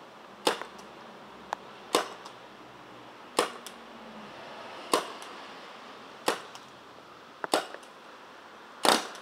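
Warsensor G1+ CO2 paintball pistol firing seven sharp shots, roughly a second and a half apart.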